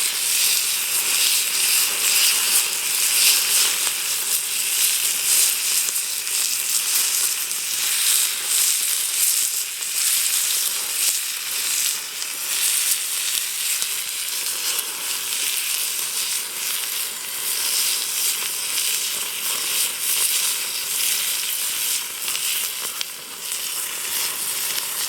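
Steak sizzling on a hot iron plate over a wood fire: a steady hiss with scattered small crackles.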